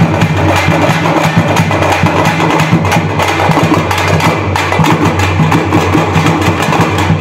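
Several thappu (parai) frame drums beaten with sticks, playing a fast, rhythmic thappattam beat together.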